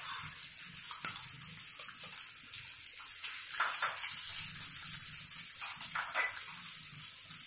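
Hot oil sizzling steadily around boiled eggs frying in a kadhai. A few brief scrapes of a spoon turning the eggs come in the middle.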